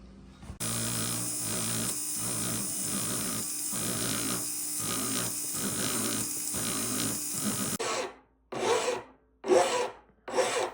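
Excess sizing stock being ground flush on a gold ring shank: a continuous abrasive grinding with a steady motor hum under it, pulsing as the tool is pressed on and eased off. It stops about eight seconds in.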